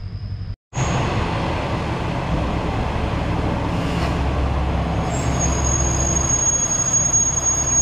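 A local train pulling into a station platform, its running gear rumbling steadily. A thin high squeal joins in about five seconds in and grows louder as it slows.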